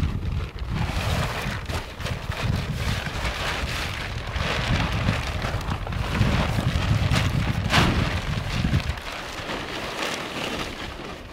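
Wind buffeting the microphone: a gusty low rumble under a steady rushing hiss, with one sharp rustle nearly eight seconds in. The rumble dies away about nine seconds in.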